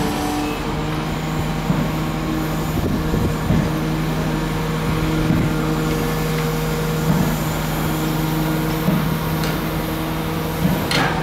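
Pontoon-mounted dredging excavator running steadily with a constant hum, with occasional knocks and clanks from its arm and grab as it works. A louder clatter comes near the end as the grab swings over the steel hopper barge.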